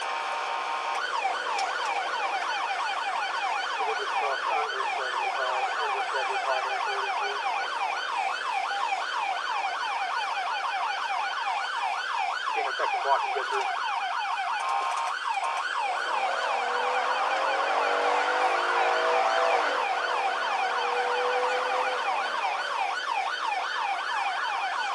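Police cruiser's siren on a fast yelp, sweeping up and down several times a second, heard from inside the car. For several seconds past the middle, a lower, slower rising-and-falling tone sounds along with it.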